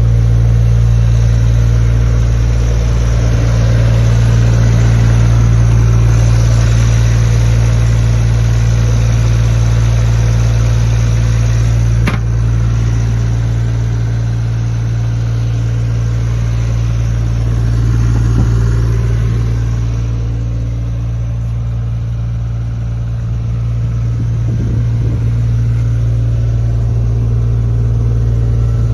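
JCB 8020 mini excavator's diesel engine running steadily, rising and easing slightly in level, with a single sharp click about twelve seconds in.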